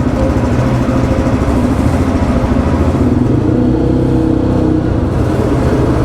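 Motorcycle engine running close by at low revs, a steady throbbing pulse.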